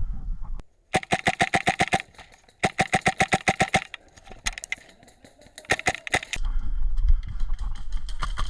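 HPA airsoft rifle firing two fast full-auto bursts of sharp clicks, about a dozen shots a second, followed by a few scattered single shots. A low rumble on the microphone comes back near the end.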